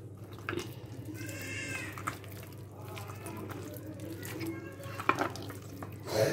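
Wet squelching and squishing of a hand kneading chicken pieces in a thick flour, cornflour and egg batter in a bowl, over a steady low hum. About a second and a half in, a short high call rises and falls.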